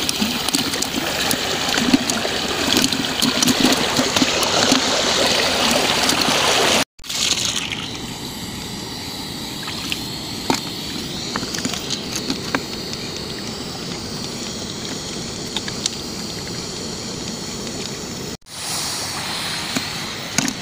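Water sloshing and trickling in a bucket of freshly caught creek fish as the fish move about. It is louder for the first several seconds, then after a cut becomes a quieter steady hiss with scattered small clicks.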